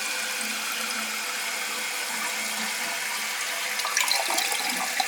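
Water running in a toilet after a flush, a steady hiss as the tank refills. A few sharp clicks near the end.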